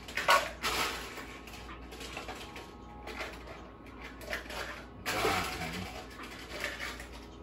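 Off-camera kitchen handling noise while a glass of ice water is fetched: a sharp knock about a third of a second in, then scattered clinks and rustling, with a louder stretch of clatter around five seconds in.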